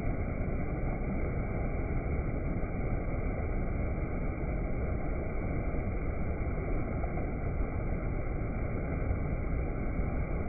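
A waterfall's steady rush of falling water, an even noise with no breaks.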